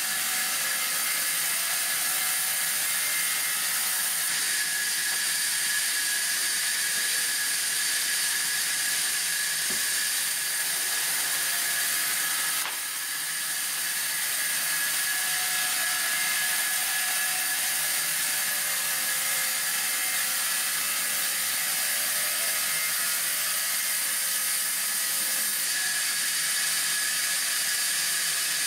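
Sawmill band saw running and cutting through timber: a steady, high-pitched hiss of blade through wood with a thin, even whine. It dips briefly about halfway through.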